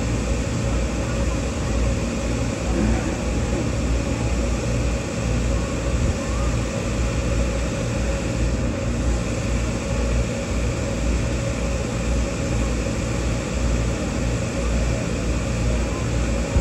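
Steady engine rumble, with a pulsing low throb under a constant hiss.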